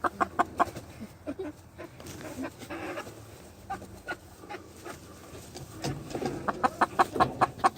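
Chickens at a 5-gallon poultry waterer, with quick sharp pecking taps and a few soft clucks. A dense run of rapid taps comes near the end.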